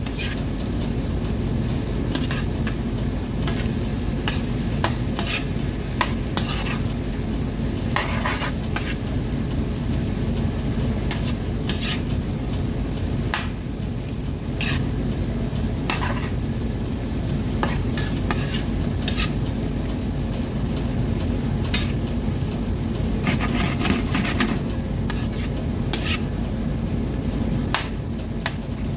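Prawns, onion and garlic sizzling in butter in a nonstick frying pan over high heat. A fork stirs them throughout, clicking and scraping against the pan at irregular moments.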